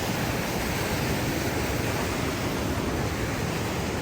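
Steady rushing of flowing river water, an even noise with a low rumble.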